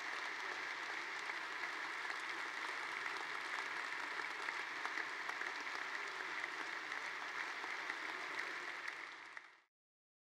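Audience applause: a large crowd clapping steadily, fading out about nine seconds in.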